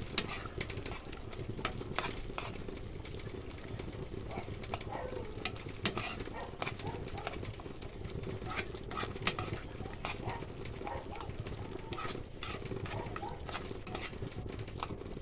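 Metal spoon stirring a thick tomato sauce in a cooking pan, with scattered clicks and taps of the spoon against the pan, the loudest near the start and about nine seconds in, over a steady low sizzle of the sauce cooking on the burner.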